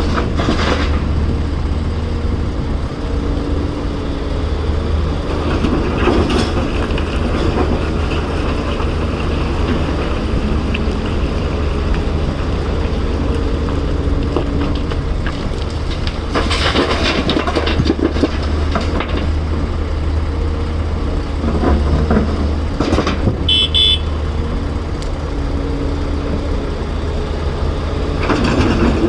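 Heavy diesel machinery of a CAT 336 excavator loading a dump truck, running with a steady low drone. Several bursts of clattering come as loads of rock and dirt drop, and a short high beep sounds near the end.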